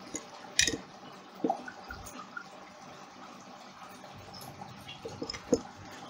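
A few sharp clicks and taps from a fiber optic cleaver being handled as a fiber is loaded into it, the loudest about half a second in and another near the end, over a faint steady background noise.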